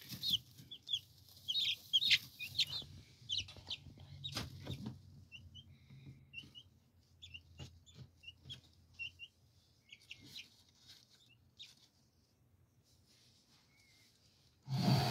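Two-week-old ISA Brown and mixed coloured-egger chicks peeping in short high chirps, many at first, then thinning out and fading near the end. A few sharp knocks and rustles are mixed in.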